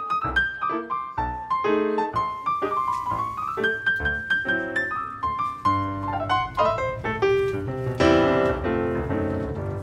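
Background piano music: a melody of quick notes over chords, swelling to a fuller, louder chord about eight seconds in.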